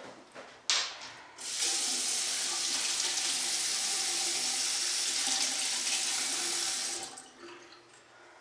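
Water running from a bathroom sink tap into the basin: turned on suddenly about a second and a half in, running steadily for about five seconds, then shut off. Two short knocks come just before the water starts.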